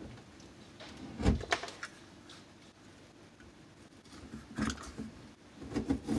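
A sharp thump about a second in, then a few light knocks and clicks: drywall and tools being handled, with no saw running.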